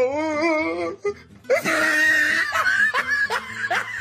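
People laughing: a long wavering laugh, then after a short pause a run of short falling laughs, about three a second.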